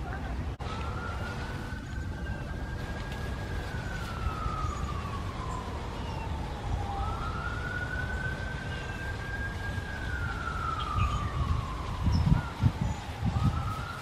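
Emergency-vehicle siren on a slow wail, its pitch rising, holding high, then sliding down, about two full cycles, over a low background hum. A few low thumps near the end are the loudest sounds.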